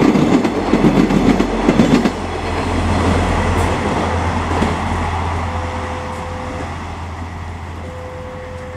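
Prambanan Ekspres multiple-unit train passing close at speed: loud wheel clatter for the first two seconds, then a steady low engine hum that slowly fades as the train pulls away. Two short steady tones sound in the second half.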